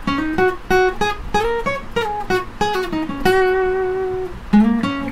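Steel-string acoustic guitar, tuned down a half step, playing a quick single-note lead solo. Some notes slide or bend into the next, and one note is held for about a second a little past the middle.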